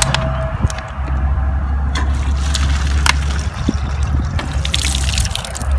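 Water running from an outdoor drinking-water tap, a steady flow with small clicks and splashes.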